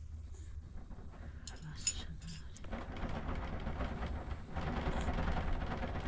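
A metal spoon clinking against a glass of tea a few times about a second and a half in, over a steady low rumbling noise that grows louder partway through.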